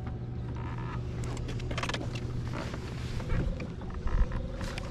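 Bass boat's electric trolling motor running under wind and water against the hull: a steady low hum that gives way to a steady higher whine about three seconds in. Scattered light clicks and a knock near the end.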